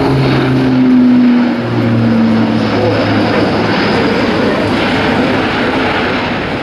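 Airbus A400M's four TP400 turboprop engines and eight-bladed propellers droning as the aircraft banks overhead. It is a loud, low propeller hum that drops in pitch about a second and a half in.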